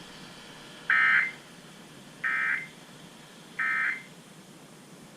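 Three short bursts of Emergency Alert System digital data tones from a NOAA Weather Radio broadcast, evenly spaced about a second and a half apart. These are the end-of-message code, marking the close of a severe thunderstorm warning.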